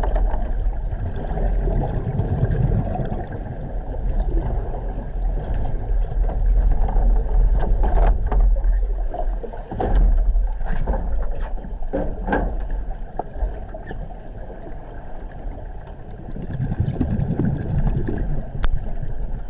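Water sloshing and churning in a training pool over a steady low rumble, with a few sharp knocks about 8 to 12 seconds in.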